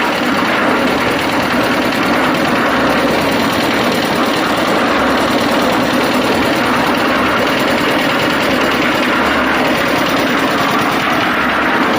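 Portable concrete mixer's engine running steadily and loudly.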